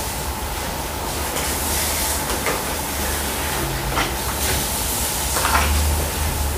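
Steady hiss with a low rumble underneath that swells near the end, and a few faint clicks.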